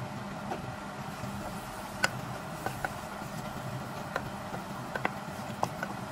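A wooden spoon clicking and knocking against a saucepan as flour is stirred into melted butter for a roux: a scattering of short sharp ticks, the loudest about two seconds in, over a steady low hum.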